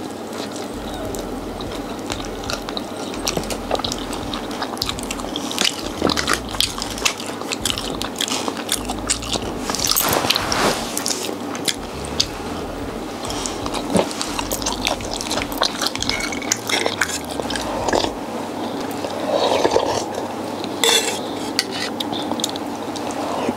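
Mukbang eating sounds: chewing and handling food, with many small irregular clicks and clinks of utensils and dishes.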